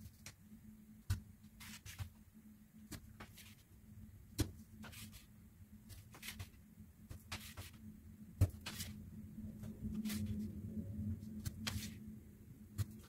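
Pocket-knife tip stabbing and twisting through corrugated cardboard against a wooden board: irregular sharp taps and short scratches, the loudest about a second in, around four seconds in and around eight seconds in. A faint steady hum runs underneath.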